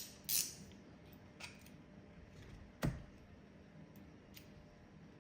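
Wera Zyklop ratchet giving a short burst of fine, rapid ratcheting clicks just as the sound begins. A few faint ticks follow, then one sharp click about three seconds in.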